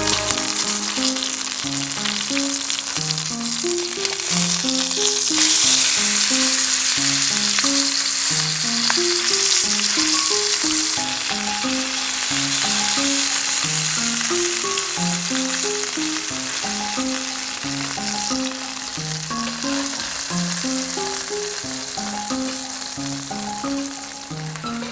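Food sizzling as it fries in a pan, a steady hiss that gets louder about five seconds in and eases off again around eleven seconds, with background music playing a melody throughout.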